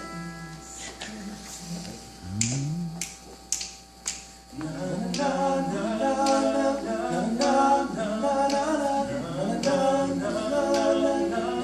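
Finger snaps keeping a steady beat while a male a cappella group opens a song: a voice swoops up a few seconds in, then from about four and a half seconds in several voices sing sustained wordless backing chords.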